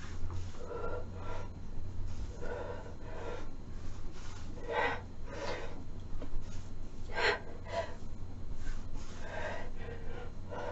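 A person breathing hard during a workout: short, forceful breaths about once a second, over a steady low hum.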